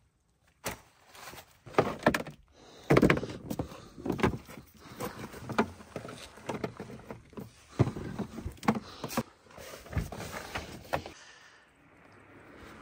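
An irregular run of knocks, clunks and rustling, stopping about eleven seconds in.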